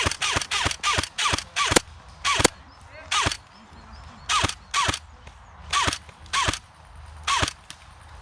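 Airsoft gun firing single shots, about fifteen in all: a quick string of eight in the first two seconds, then slower, spaced shots until about seven and a half seconds in. Each shot is a sharp crack with a short falling twang after it.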